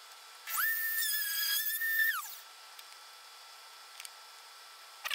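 Benchtop drill press motor spinning up to a steady high whine, running for about a second and a half, then winding down.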